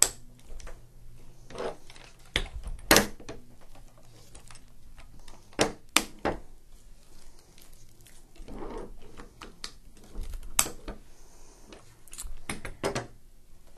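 Handling noise from a small dog wheelchair: the plastic harness clips clicking and the metal frame knocking and rattling against a tabletop. There are a handful of sharp clicks spread through, with softer rattles between them.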